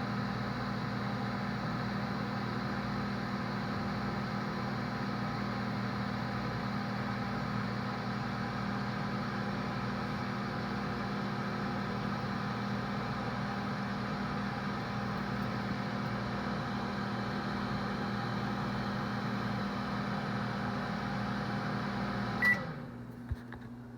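Microwave oven running with a steady hum, then shutting off suddenly near the end with a short high beep signalling the heating cycle is done, followed by a small click.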